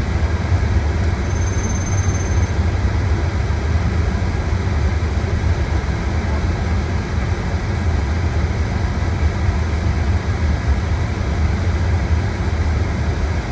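Steady low rumble with a hiss above it: the flight deck's background noise in a Boeing 777 freighter on the ground.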